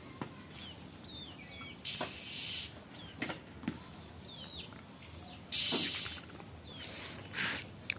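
Small birds chirping, many short calls that bend up and down in pitch. Two brief bursts of hissing noise come through, one about two seconds in and a louder one about five and a half seconds in.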